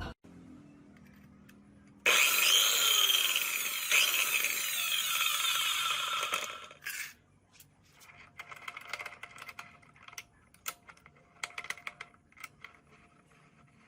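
A power cutting machine runs loud and harsh for about four and a half seconds, then stops. Quieter, irregular scraping and clicking follows.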